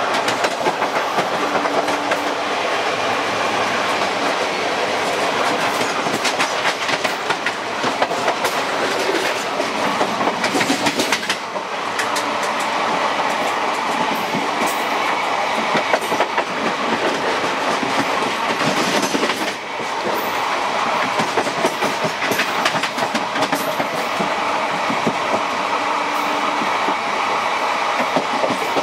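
Indian Railways passenger coaches running along the track, heard from the open gangway between two coaches: a loud, steady rumble and rattle with frequent sharp clicks from the wheels over rail joints.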